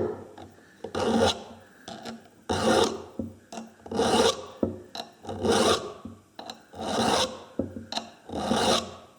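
A hand file rasping across chainsaw chain cutters as the chain is sharpened, in about six even strokes roughly a second and a half apart.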